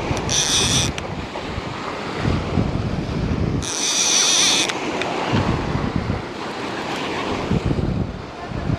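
Gulf surf breaking with wind buffeting the microphone. Two short high-pitched buzzes cut in, the first just after the start and the second about three and a half seconds in.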